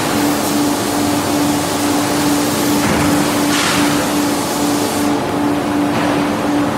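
Anyang C86Y-250 fully hydraulic die forging hammer standing by with its hydraulics running: a steady hum that pulses about twice a second under loud workshop noise, with a brief hiss about three and a half seconds in. The ram does not strike.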